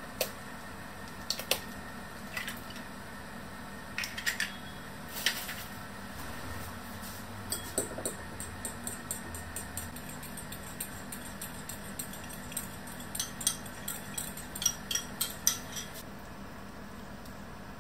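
Eggs cracked against the rim of a small ceramic bowl, a few separate sharp taps. Then the eggs are beaten, the utensil clinking rapidly against the bowl for about eight seconds before stopping suddenly.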